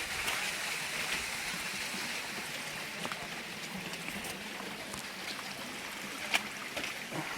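Hot spring water running and splashing over rock as a small waterfall, a steady hiss that slowly grows fainter, with a few light knocks.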